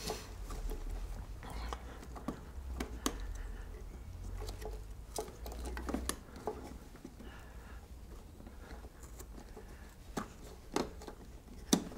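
Hands handling a plastic brake fluid reservoir and its rubber-covered mounting clip on a motorbike frame: light rubbing with scattered small clicks and taps, a few sharper clicks near the end. A low rumble underlies the first half.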